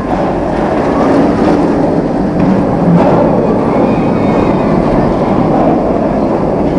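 Park excursion train running along its track, heard from on board as a loud, steady rumble.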